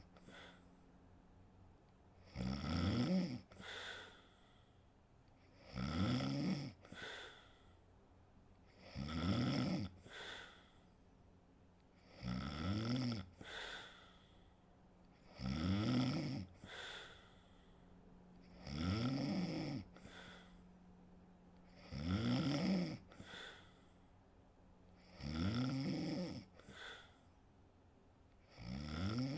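A sleeping woman snoring in a steady rhythm, about one snore every three seconds. Each snore is a pitched, rattling inhale about a second long, followed by a shorter, softer breath out.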